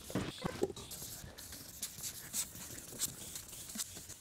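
1500-grit sandpaper on a sanding sponge rubbed side to side over a wet, oxidized plastic headlight lens: faint, repeated scuffing strokes, about two a second, as the yellowed surface layer is sanded off.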